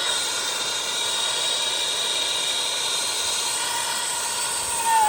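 Air-acetylene torch flame burning steadily under a lead melting pot of water, a constant rushing hiss. A brief squeal near the end.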